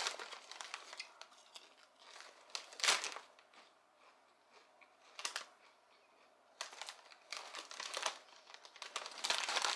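A Lay's potato chip bag being handled and torn open, crinkling in short bursts, with the sharpest crackle about three seconds in.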